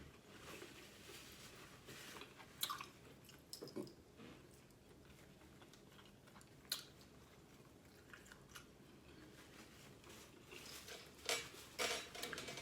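Close-up eating sounds of a person chewing food, with scattered short clicks and crunches, several of them clustered near the end.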